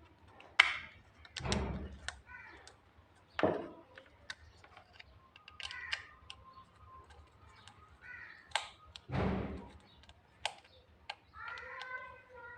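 Scattered clicks and a few dull knocks as a plug and its wire are handled and fitted together, the loudest knocks about one and a half seconds and nine seconds in.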